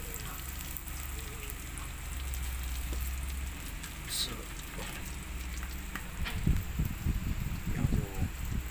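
Food frying in a pan: a steady sizzling hiss. Near the end, irregular low thumps and crackles come in over it.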